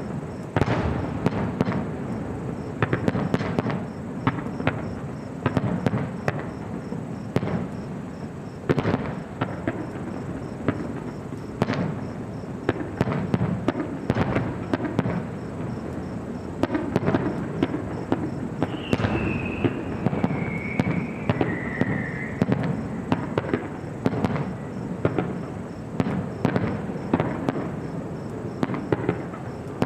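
Aerial fireworks going off in rapid succession: sharp bangs one after another over continuous crackling. A falling whistling tone sounds about two-thirds of the way through.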